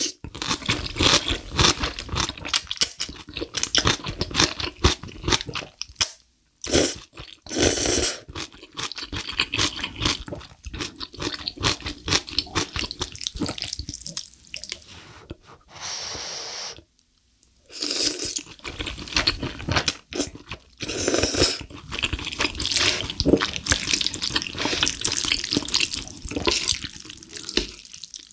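Close-miked slurping and wet, smacking chewing of saucy black bean instant noodles, in repeated slurps with a longer steady slurp a little past halfway.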